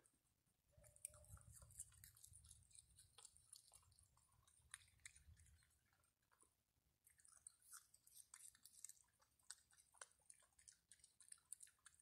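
Virginia opossum chewing food, faint, with many quick crunching clicks in two spells and a short lull about halfway through.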